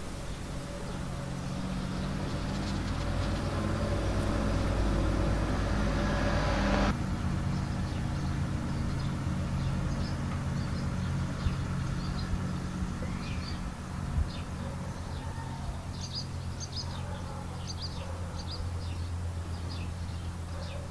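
Outdoor ambience: a steady low engine-like hum throughout, with a louder rushing noise that builds over the first seven seconds and cuts off abruptly. From about ten seconds in, small birds chirp repeatedly.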